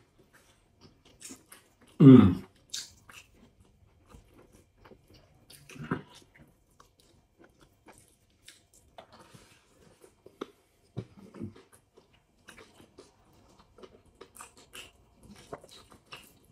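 Close-up mouth sounds of two people eating biryani with goat rib meat by hand: chewing, lip-smacking and small wet clicks. A short low 'mm' from one eater about two seconds in is the loudest sound, with fainter ones near six and eleven seconds.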